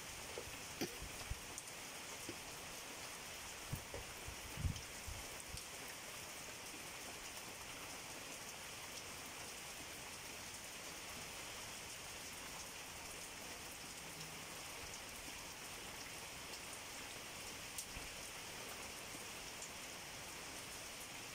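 Heavy rain falling steadily, with a few dull low thumps in the first six seconds.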